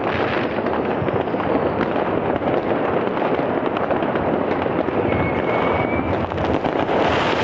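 Dense, continuous crackling and banging of many New Year's rockets and firecrackers (Böller) going off all around at once, with a short whistle about five seconds in.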